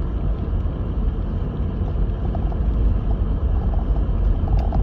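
Lexus GX470 with its 4.7-litre V8 driving on a snow-covered road: a steady low rumble of engine and tyres.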